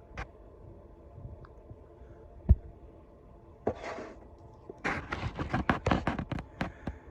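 Handling noises on a work surface: one sharp thump about two and a half seconds in, a short scrape, then a quick run of clicks and clatter near the end.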